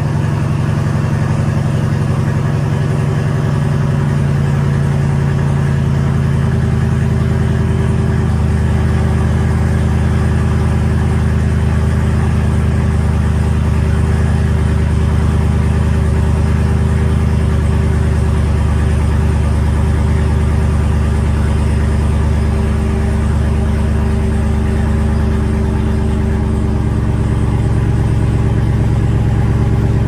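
Jeep Wrangler Rubicon engine idling steadily, its pitch dropping about eight seconds in and shifting again near the end.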